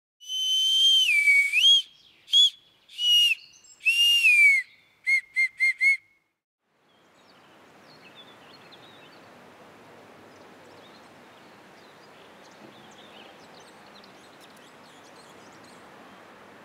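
A bark whistle (Maienpfeife) blown in several breathy phrases whose pitch slides down and up, then four short even toots, stopping about six seconds in. After it comes a faint outdoor background hiss with a few faint bird chirps.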